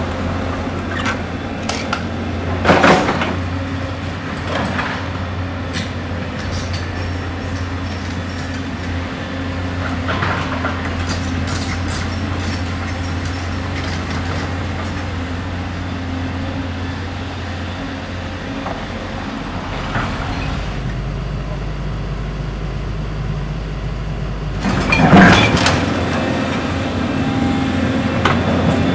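Doosan DX235LCR crawler excavator's diesel engine running steadily during demolition, with several crashes of falling masonry and debris, the loudest about three seconds in and near the end.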